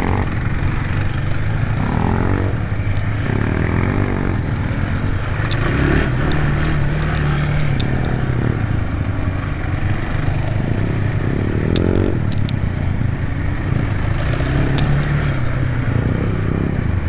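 Quad bike (ATV) engine running under way, revving up and falling back in repeated surges, with a few sharp clicks and clatter over it.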